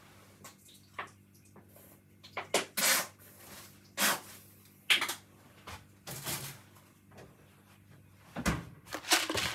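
Irregular short knocks and clatters of kitchen items being handled, with gaps between them.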